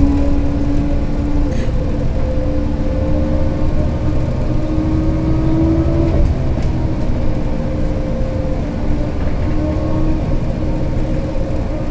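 LiAZ-5292 city bus heard from inside the passenger cabin while driving: a low engine rumble with a whining drivetrain tone. The whine rises slowly with speed, dips about six seconds in, then climbs again.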